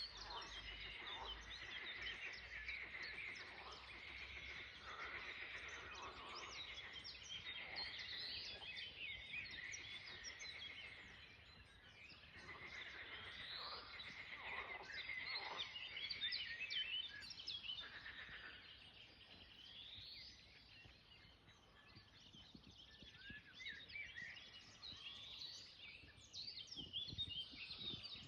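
Many birds singing and chirping at once, faintly, with overlapping short calls and an occasional rising whistle.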